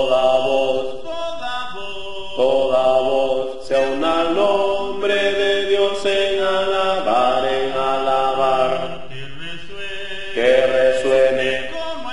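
Voices singing a Spanish-language hymn in long held phrases with short breaks between them: a choir part-practice recording with the bass part brought forward.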